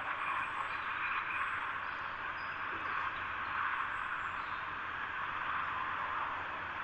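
Steady wind rushing through foliage as an even hiss, with a few faint, short, high bird chirps.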